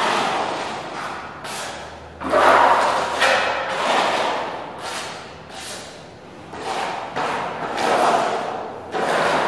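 Putty knife scraping wall putty across a plastered wall in repeated sweeping strokes, roughly one every one to two seconds.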